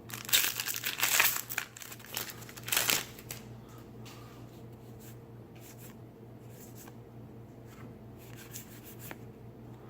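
A Magic: The Gathering booster pack's foil wrapper crinkling and tearing open in several loud rustling bursts over the first three seconds, followed by faint light ticks.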